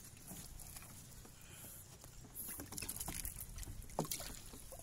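Water lapping and splashing at the edge of a raft as a fishing net is handled, with a few faint knocks and wind rumble on the microphone.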